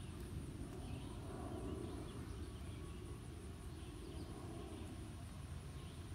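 Outdoor background: a steady low rumble under a constant high-pitched insect drone, with faint chirps recurring every second or so.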